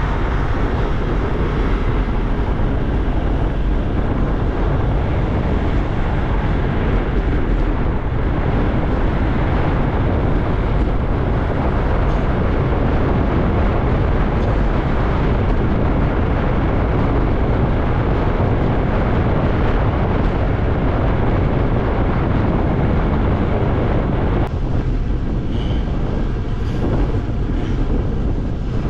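Steady rushing wind on the microphone of a camera carried on a moving bicycle, heaviest in the low end and unbroken throughout.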